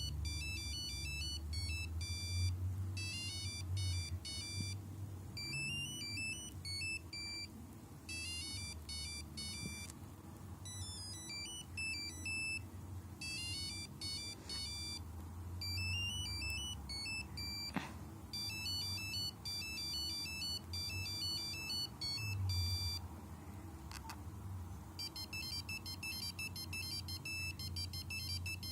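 Nokia 5125 mobile phone playing monophonic beeping ringtone melodies, one note at a time, in short phrases with brief pauses. After a pause near the end, a new tune of quickly alternating notes starts. A low hum runs underneath, and there is one sharp click partway through.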